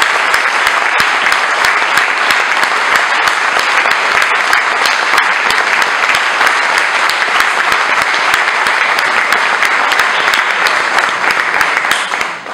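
Audience applauding: steady, dense clapping that fades out near the end.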